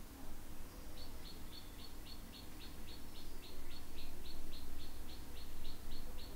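A bird calling in the background: a long run of short, high chirps, about four a second, starting about a second in, over a low steady hum.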